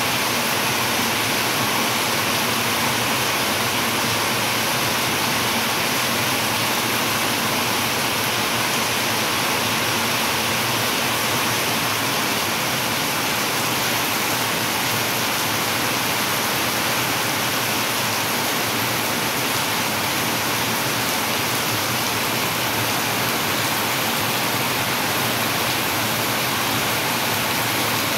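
Heavy monsoon-style rain pouring steadily onto brick paving, puddles and tiled roofs: a dense, even rush of rain that holds at the same strength throughout.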